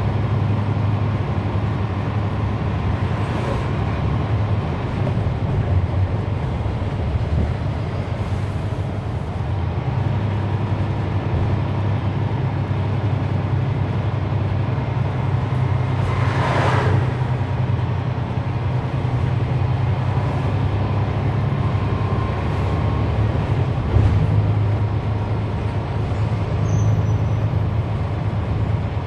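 A 2011 NABI 40-SFW transit bus's Cummins ISL9 diesel engine running with a steady low drone, heard from on board, with its ZF Ecolife automatic transmission nearly silent. About halfway through there is a short hiss, and a brief knock a few seconds later.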